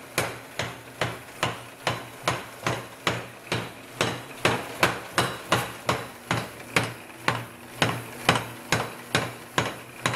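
Mechanical power hammer forging a red-hot bar of 5160 truck leaf-spring steel, striking in an even rhythm of a little over two blows a second, with a steady hum from the machine underneath.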